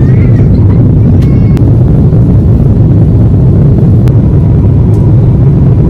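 Jet airliner's engine and airflow noise heard inside the passenger cabin during the climb after takeoff: a loud, steady low rumble.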